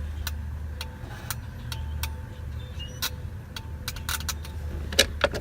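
Irregular sharp clicks from a 1999 Pontiac Grand Prix's turn-signal lever being worked, over a low steady hum from the car. There is no regular blinker ticking: the flasher relay is failing and the turn signals are not flashing.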